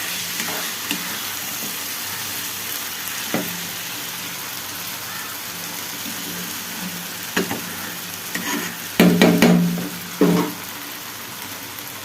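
Chicken masala sizzling in a pan while it is stirred, with a steady frying hiss. A few knocks, then a loud bout of clattering about nine to ten and a half seconds in.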